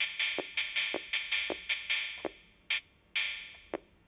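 Yamaha Portasound PS-2's built-in rhythm accompaniment playing a simple drum-machine beat of short hissing cymbal-like hits and low drum thumps. The beat slows down as its tempo is turned down, the hits growing further apart from about two seconds in.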